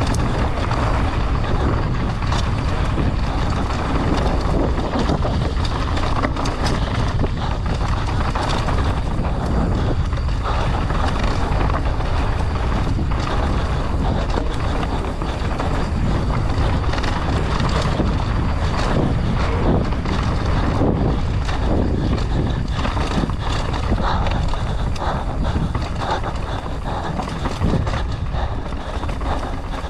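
Mountain bike ridden fast downhill on a rough dirt trail: wind rushing over the camera microphone, with frequent knocks and rattles from the tyres, frame and chain over rocks and roots.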